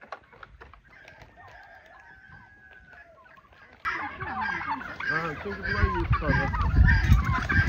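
Faint strokes of a whisk in a glass bowl, then, starting suddenly about four seconds in, a flock of domestic turkeys with chickens among them calling all at once: many overlapping short yelps and clucks as they crowd around scattered grain.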